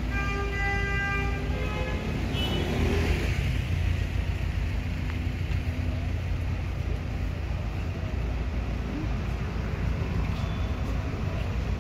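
Busy road traffic: a car horn sounds at the start, held for about two seconds, then the steady engine and tyre noise of passing cars and vans carries on.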